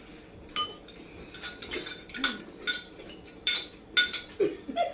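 Spoons clinking against bowls as several people eat cereal with milk: a dozen or so scattered, sharp clinks, each with a brief ring.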